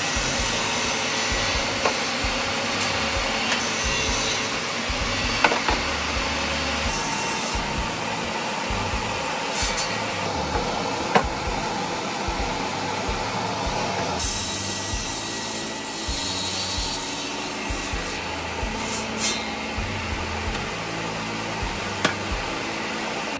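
Table saw running and ripping hardwood boards: a steady, dense sawing noise with a few sharp clicks, changing abruptly a couple of times as one cut gives way to the next.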